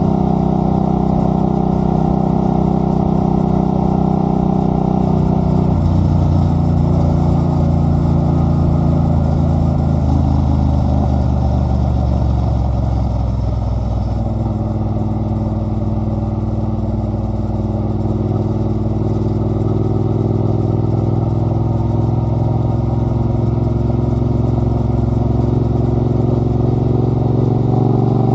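Triumph Bonneville Bobber's 1200 cc parallel-twin engine running through a British Customs straight-pipe exhaust while under way. The note steps down about six seconds in, sinks as the bike slows from about ten seconds in, then climbs steadily from about fourteen seconds in as it accelerates again.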